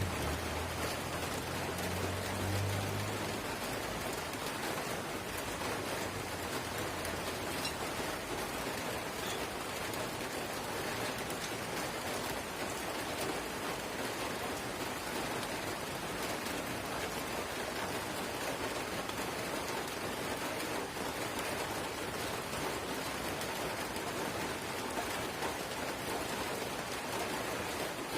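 Drizzle falling steadily, an even hiss of light rain. A low rumble underneath fades out in the first few seconds.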